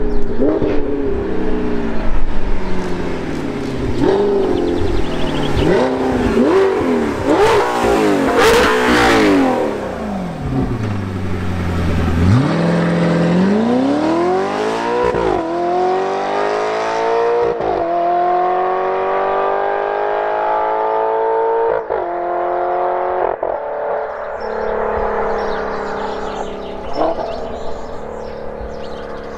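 Sports car engines accelerating hard at full throttle through a run of upshifts, their exhaust notes rising and dropping at each gear change. One car passes close by about eight seconds in, its pitch falling as it moves away. Then another accelerates in from a distance, its note climbing steadily through several more upshifts.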